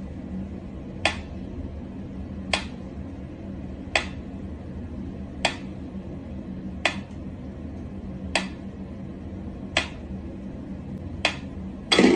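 Mechanical pendulum metronome ticking slowly, one sharp tick about every one and a half seconds, over a low steady hum. Right at the end a cluster of louder knocks and clicks comes as a cat leaps at it.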